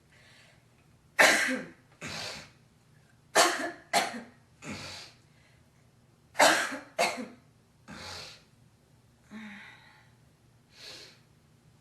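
A girl coughing in fits: three bouts of two or three sharp coughs each, followed by two softer breaths or throat sounds near the end.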